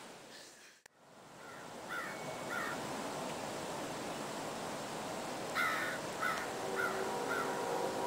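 A bird gives short calls in two runs, about a second and a half in and again from about five and a half seconds, over a steady outdoor hiss. Near the end a Nathan P-5 five-chime locomotive air horn starts up quietly, a chord of several steady notes sounding together.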